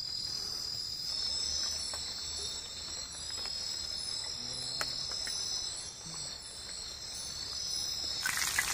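Steady chorus of crickets and other forest insects, a continuous high-pitched trilling, with a few faint clicks. A loud hiss starts suddenly near the end.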